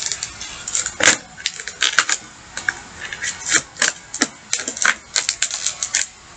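Stiff plastic toy packaging crackling and clicking irregularly as it is cut and pried out of a cardboard box.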